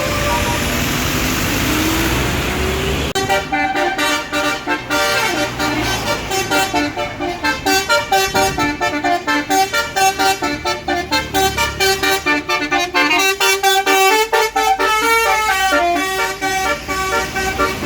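A bus's basuri telolet horn playing a fast melody of short, quickly stepping notes, starting about three seconds in. Before that, a loud rushing noise with one rising tone.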